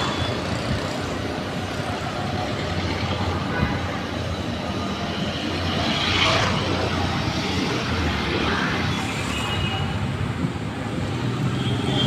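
Street traffic: a steady mix of vehicle engines and road noise.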